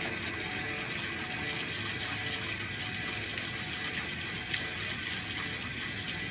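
Steady rain falling on the eaves, an even, unbroken hiss of drops.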